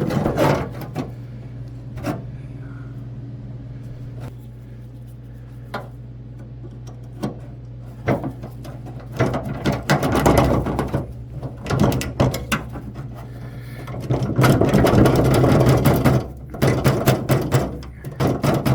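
Metal clicking, rattling and scraping as a pick works at a rusted, stuck clip on the tailgate handle's latch rod, with a steady low hum underneath. Scattered clicks at first, growing into busier clattering about halfway through, with a loud, continuous stretch of rattling and scraping about fourteen seconds in.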